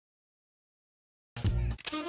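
Silence for over a second, then music cuts in abruptly with a loud, deep hit, and a held melody note begins near the end.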